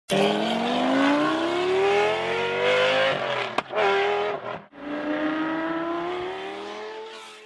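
Car engine accelerating hard through the gears: its pitch rises for about three seconds, breaks for a shift with a brief dip around four and a half seconds, then climbs again while fading away.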